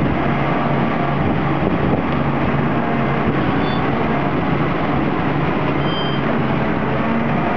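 A 535B dual-arch skidder's diesel engine running steadily with an even, low hum.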